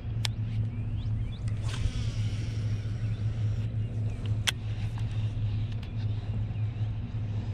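Steady low mechanical hum, with a few sharp clicks and a faint whir from a baitcasting reel as line is reeled in and cast.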